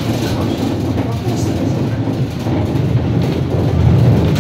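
Tram running on its rails with a steady low rumble that grows a little louder near the end, with occasional clicks.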